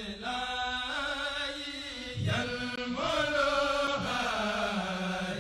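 Channel intro music of long, held chant-like vocal notes that shift pitch every second or so.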